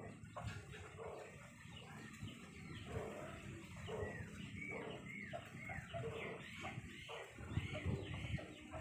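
Birds chirping: many short, arching calls repeated over and over, over a low rumble.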